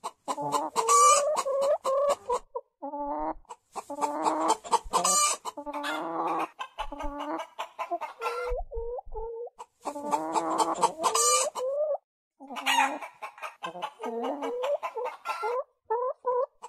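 Hens clucking and cackling in rapid runs of short calls, broken by brief pauses.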